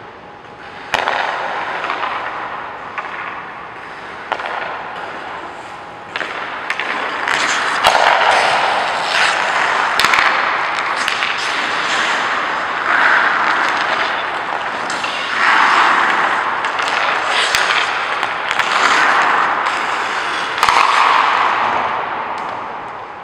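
Hockey skate blades scraping and carving on rink ice, in repeated swelling hisses a couple of seconds apart that grow louder after the first few seconds, with scattered sharp knocks.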